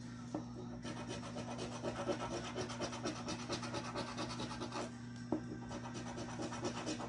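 Metal coin scraping the scratch-off coating of a lottery ticket in rapid back-and-forth strokes. There is a short pause near five seconds with a single sharp tap, then the scratching resumes. A steady low electrical hum runs underneath.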